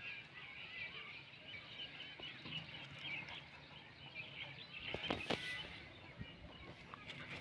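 Many small birds chirping steadily in the background, with a couple of short knocks about five seconds in.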